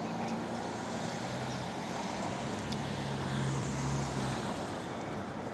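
Light road traffic: cars passing on the road, a steady hum of engines and tyre noise that swells a little past the middle.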